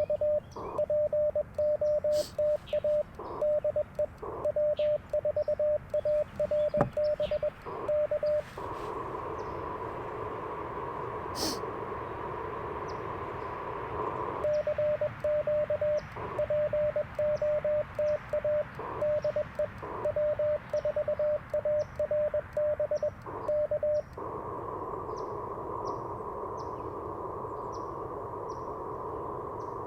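Morse code sidetone from an Icom IC-705 transceiver: one steady mid-pitched tone keyed in dots and dashes as the operator sends CW. It stops after about eight seconds, giving way to the hiss of 40-metre band noise through a very wide receive filter. A second stretch of keying follows, then band hiss again near the end.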